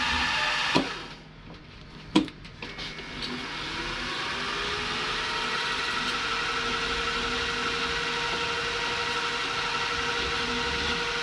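Bench milling machine's spindle motor running, cut off with a click about a second in, then switched on again with a sharper click and winding up in pitch to a steady run.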